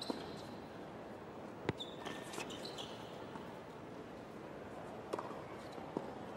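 Tennis ball struck by rackets and bouncing on a hard court during a rally: a few sharp pops a second or more apart, over a faint steady arena background.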